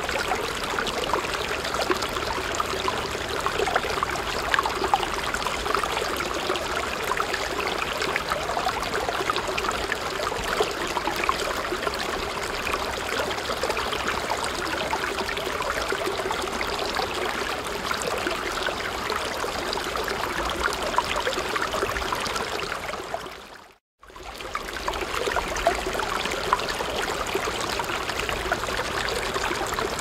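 Water trickling at a medium rate, a steady stream of small splashes and bubbling. About three-quarters of the way through it fades out to silence for a moment and comes straight back in.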